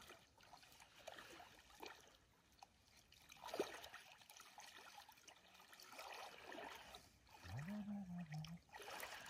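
Faint sloshing and trickling of shallow river water as people wade through it dragging a seine net. One short knock about three and a half seconds in, and a low voice-like murmur near the end.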